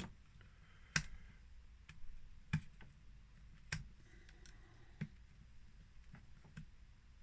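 A handful of faint, sharp plastic clicks, spaced a second or so apart, as a laptop's cracked touch-screen panel is pried up out of its bezel by hand.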